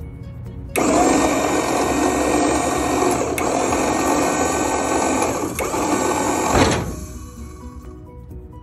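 Maxon liftgate's electric hydraulic pump motor starts suddenly about a second in, runs steadily for about six seconds and then cuts off. The liftgate is being cycled to pump off excess fluid from an overfilled reservoir.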